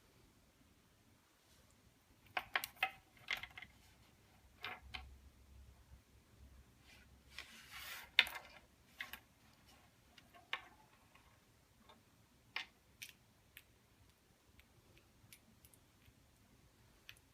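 Faint, scattered small clicks and taps, with a brief rustling noise about eight seconds in.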